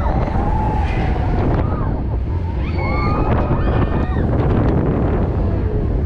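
Wind buffeting the microphone over a heavy low rumble as a Zamperla disko coaster's car runs along its track, with riders' voices calling out and rising and falling in pitch over it.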